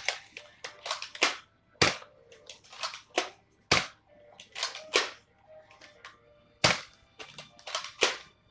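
Nerf foam-dart blasters firing in a quick, irregular string of sharp snapping shots, some louder than others.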